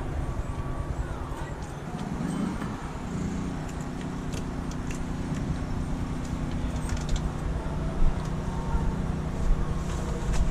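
A steady engine drone sets in about three seconds in and holds its pitch, over a low rumble. Scattered light clicks and rattles come from a bicycle being handled.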